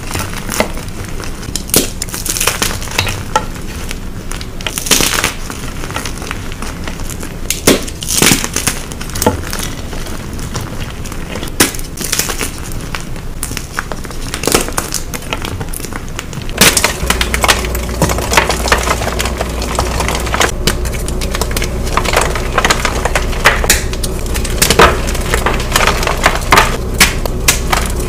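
Blocks of gym chalk being crushed, giving irregular crisp crunches and crumbling. About two-thirds of the way in the recording changes: a steady low hum comes in under the crunching, which turns denser and more continuous.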